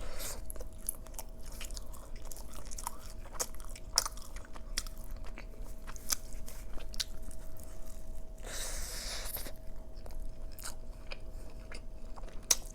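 Close-miked chewing and biting of a large burrito: wet mouth clicks and smacks at an irregular pace, with one longer noisy sound lasting about a second near the ninth second.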